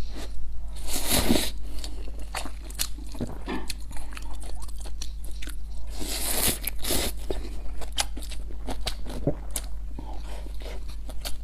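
Close-up eating of glass noodles with minced meat (ants climbing a tree): chewing with many small wet clicks, and two longer slurps at about a second in and again near the middle.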